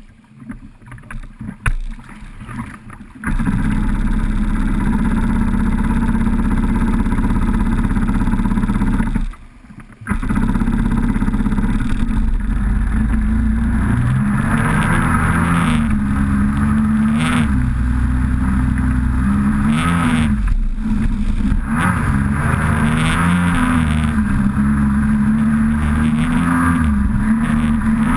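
Kawasaki SXR800 stand-up jet ski's two-stroke twin engine catching suddenly about three seconds in and running steadily. It cuts out for under a second and starts again. From about the middle on it revs up and down repeatedly as the throttle is worked and the ski gets under way.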